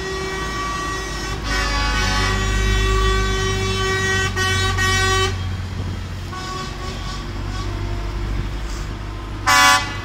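Truck horns sounding long held chords over the low hum of slowly passing diesel trucks, with a second horn joining about a second and a half in and the horns stopping about five seconds in. Shorter horn toots follow, and a short, loud horn blast comes near the end.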